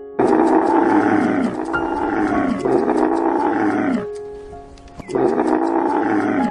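A large animal giving loud, rough roaring calls: three in quick succession, then a short pause and a fourth, each about a second long and dropping in pitch at the end. Soft piano music plays underneath.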